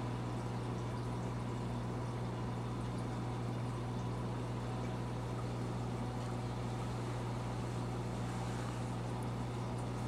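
Steady low hum with a constant hiss of water, from a reef aquarium's pumps and water circulation.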